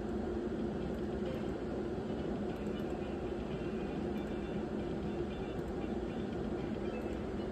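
Steady low hum of room noise, with faint electronic tones from a video slot machine as its reels spin.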